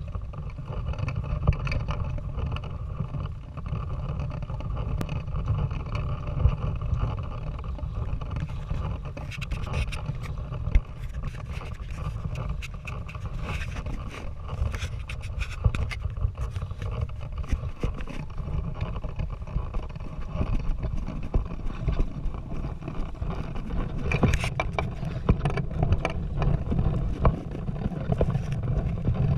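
Steady wind rumble on a GoPro camera's microphone, with scattered clicks and knocks throughout, thickest about ten seconds in and again near the end.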